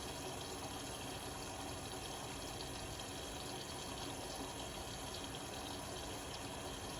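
Indesit Innex BWE 91496X washing machine with water running steadily inside it, an even rush that does not change.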